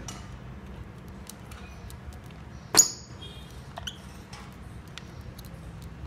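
Lovebirds feeding in a plastic bowl of soft food: scattered small clicks and taps of beaks against the bowl and food, with one sharp, ringing clink about three seconds in.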